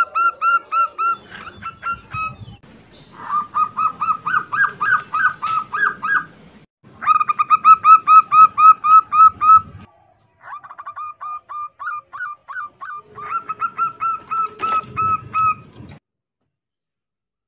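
Female zebra doves (perkutut) in breeding condition calling for males: fast runs of short, clipped cooing notes, about four a second, in several separate bursts of a few seconds each with short gaps between. A sharp click sounds about fifteen seconds in.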